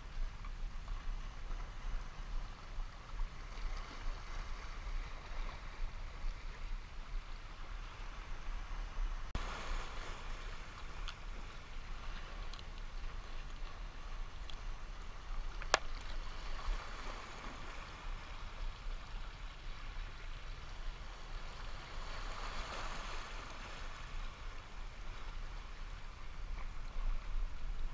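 Small sea waves washing and gurgling over shoreline rocks, over a steady low rumble. A single sharp click a little past halfway.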